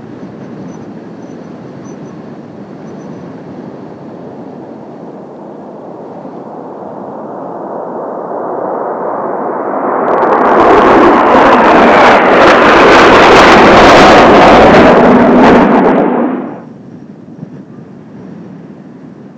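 Kawasaki T-4 jet trainers of the Blue Impulse formation flying over: a jet noise that builds from a distant rumble into a very loud, crackling pass, then drops away sharply a few seconds before the end.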